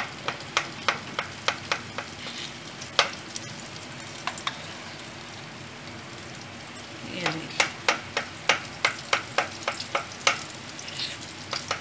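Moong dal vadas deep-frying in hot oil: a steady sizzle with clusters of sharp crackling pops as fresh batter is dropped in. The pops come in the first two seconds and again from about seven seconds in.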